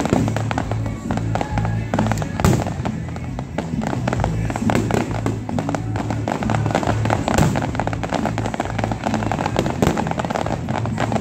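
Aerial fireworks bursting and crackling in rapid succession, with heavier bangs about two and a half seconds in and again past seven seconds. Music plays underneath the bursts.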